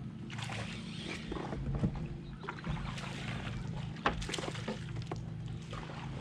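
Kayak on the water: scattered clicks and knocks, the sharpest about four seconds in, over a steady low hum.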